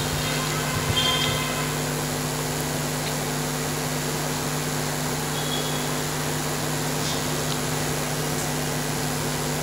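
Steady background hum and hiss with a few faint steady tones, and a brief soft knock about a second in.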